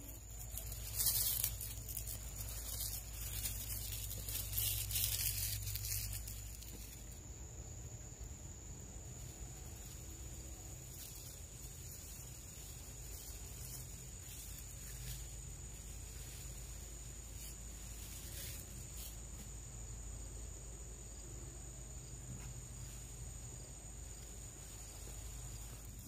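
A steady high-pitched whine over a low, even hum, with a few rustles and knocks in the first six seconds, the loudest about a second in.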